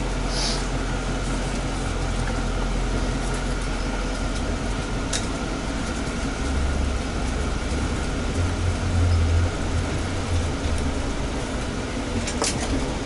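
Steady low rumble of a vehicle running, with a faint steady whine above it and a couple of light clicks, about five seconds in and near the end.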